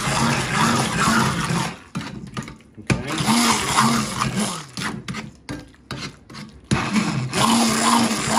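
Stick blender motor running while puréeing thick roasted vegetables and stock, its pitch wavering as the blade works through the purée. It stops briefly about two seconds in, runs again, then cuts in and out for a couple of seconds past the middle before running steadily again near the end.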